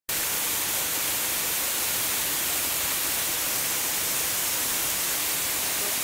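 Waterfall pouring into a pool: a steady, unbroken rush of water, heavy in the hiss.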